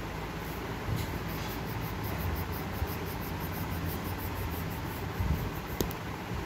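Coloured pencil shading on paper in quick back-and-forth strokes, about four a second, over a steady low rumble, with a sharper click about a second in and again near the end.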